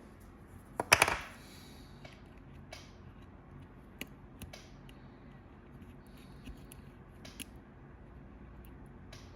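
Handling noise on a workbench: a quick cluster of sharp clicks and knocks about a second in, then scattered light ticks and taps.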